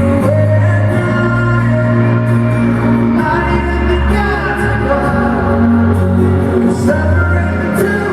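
Live pop concert music: the band plays and a lead singer sings over the arena sound system, heard from within the audience.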